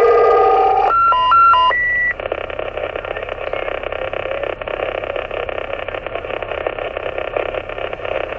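CB radio receiving on single sideband: a warbling transmission ends about a second in with a stepped multi-tone roger beep, then the channel falls to a steady hiss of static.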